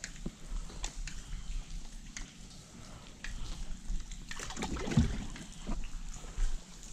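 Water splashing and trickling beside a small boat, with scattered light ticks of rain and a louder slosh about four and a half seconds in.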